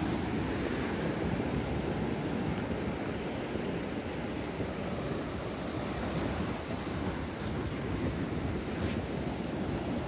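Sea surf breaking and washing up a sandy beach as a steady rush of noise, with wind buffeting the microphone.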